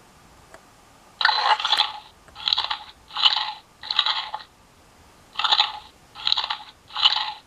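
Zoomer Show Pony robotic toy playing crunchy munching sounds through its small speaker as it 'eats' the toy carrot held to its mouth. Seven short chomps: four in quick succession, a short pause, then three more.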